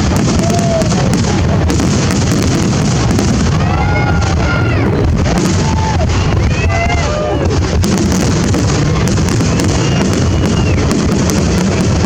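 Fireworks display: a continuous dense crackle and rumble of bursting fireworks, with short rising-and-falling calls from onlookers in the middle.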